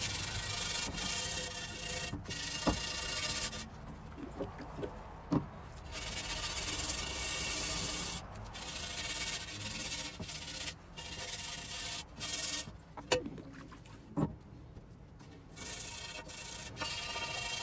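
Gloved hand scrubbing the wet cast iron surface of a Griswold No. 9 griddle in repeated rubbing strokes, cleaning off the residue loosened by electrolysis. The scrubbing comes in stretches with short pauses, and a few sharp knocks stand out.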